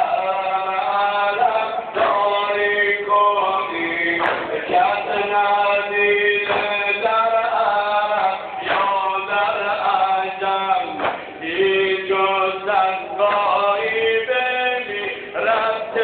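A man singing a chant-like melody in long held phrases whose pitch bends and wavers.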